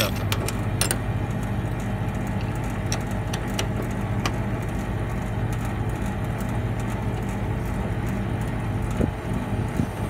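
Split air conditioner's outdoor compressor running with a steady hum during a refrigerant pump-down, as the small high-side (liquid line) service valve is being closed, with a few sharp clicks. The refrigerant can be heard straining, 'complaining', against the closing valve.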